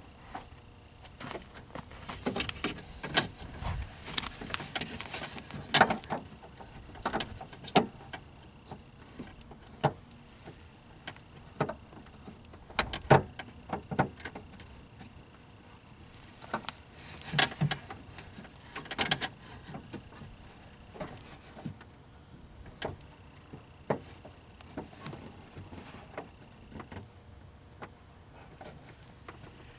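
Irregular clicks, knocks and metallic taps of hand work on a car door's outside handle and lock cylinder, as the cylinder is fitted into the door of a 1994 Geo Prizm (a Corolla twin).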